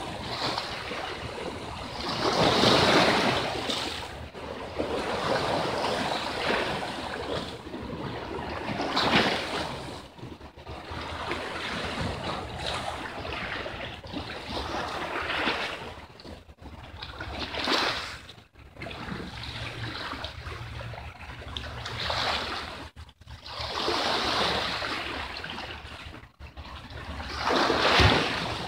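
Sea waves washing and splashing against coastal rocks, swelling into a louder surge every few seconds.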